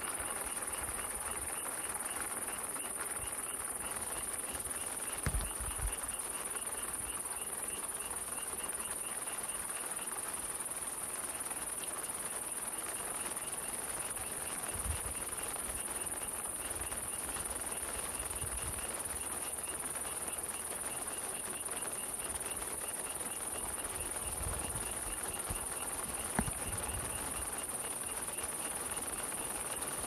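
Steady rain falling in a forest, with an insect chirping in a fast, even rhythm throughout. A few soft low thuds stand out, about five seconds in, halfway through and near the end.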